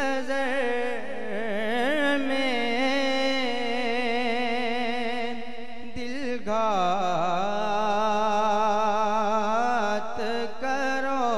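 A man singing a naat, an Urdu devotional song, into a microphone. He holds long notes with wavering, ornamented pitch and pauses briefly for breath about six seconds in and again near ten seconds.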